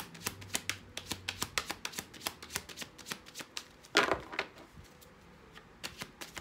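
A tarot deck being shuffled by hand: a quick run of card slaps, about four a second, then a louder rustling flurry of cards about four seconds in, followed by quieter handling.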